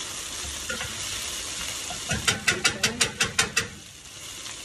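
Mixed vegetables and blackfish sizzling in a stainless steel frying pan over medium heat. A wooden spoon stirs them, knocking against the pan in a quick run of about eight taps about two seconds in.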